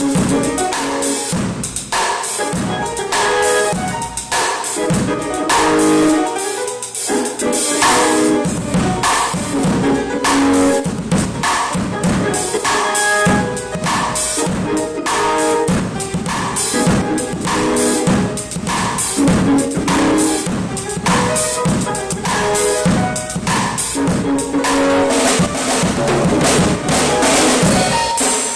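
Live band playing a warm-up: a drum kit with bass drum and snare hits keeping a steady beat under sustained pitched instrument notes.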